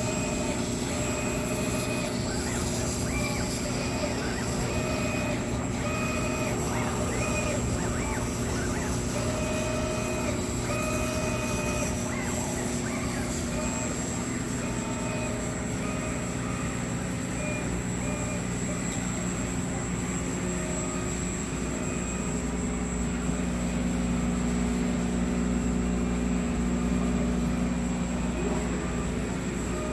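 Non-metal laser cutting machine with a roll auto-feeder running: a steady machine hum, with short pitched whines that start and stop many times, most of them in the first half.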